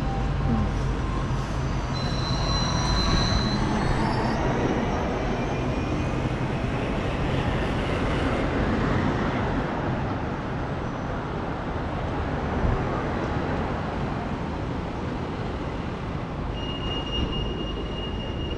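Steady rumble of traffic on a busy city street, with a thin high whine for a couple of seconds near the end.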